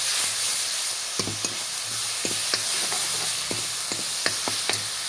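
Garlic and onion paste sizzling in hot oil in a kadhai, frying as a masala base, with a metal spatula clicking and scraping against the pan at irregular moments as it is stirred.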